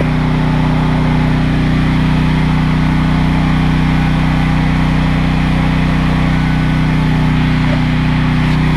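A motor running steadily: an even, deep hum with a hiss above it.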